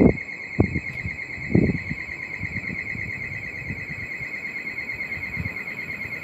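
Wind gusting on the microphone in low buffeting bursts, strongest at the start and about a second and a half in, over a steady, high-pitched warbling tone.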